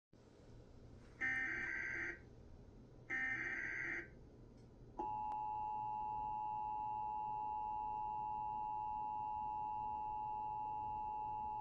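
Emergency Alert System test: two bursts of about a second each of the SAME header's digital data tones, then the steady two-tone EAS attention signal starting about five seconds in.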